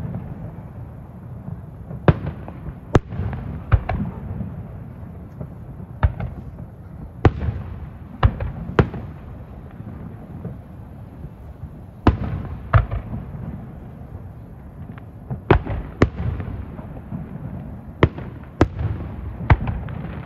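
Aerial firework shells bursting at irregular intervals, about fifteen sharp bangs, each followed by an echoing rumble. A steady low rumble lies underneath.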